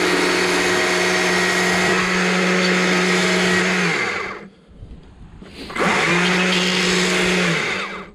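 A small Stihl chainsaw runs at a steady high speed while cutting into the wood of the owl's head. About four seconds in, its pitch falls as it winds down and stops. It starts again with a rising pitch near six seconds and winds down once more near the end.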